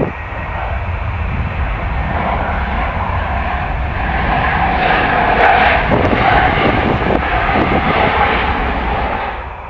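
Airliner engines running loud as an aircraft moves past, building to a peak about halfway through and cutting off abruptly near the end. Wind buffets the microphone underneath throughout.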